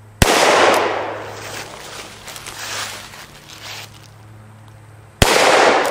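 Two shots from a Rock Island Armory M200 .38 Special revolver, about five seconds apart, each followed by a long echo off the woods that fades over a second or more.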